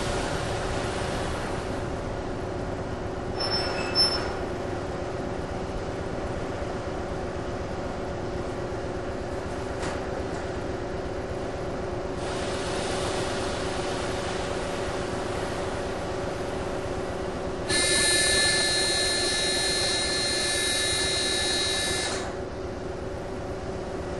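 NS DE-II diesel-electric trainset 186 running with a steady humming and buzzing. A short sharp click comes about four seconds in. About three-quarters of the way through, a louder high whine of several tones starts suddenly and cuts off after about four seconds.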